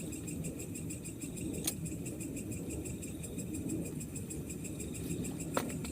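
Night chorus of crickets and other insects, a steady rapid pulsing trill, over a low rumbling hiss. Two short clicks break in, one at about two seconds and one near the end.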